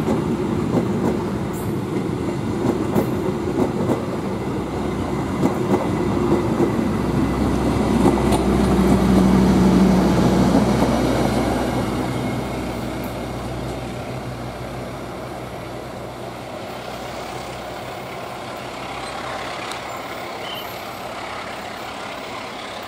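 Argo Parahyangan passenger train's coaches rolling past on the rails, wheels rumbling with scattered clicks over the track. It is loudest about nine seconds in, then fades steadily as the train moves away.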